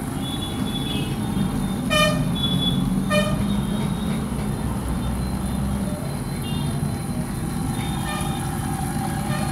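Road traffic running steadily in the background, with two short vehicle horn toots about two and three seconds in.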